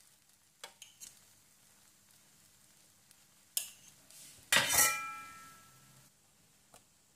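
A metal kitchen utensil clanks against a steel dish: a few light taps, then a knock about three and a half seconds in. A louder metallic clank follows a second later, ringing briefly as it fades.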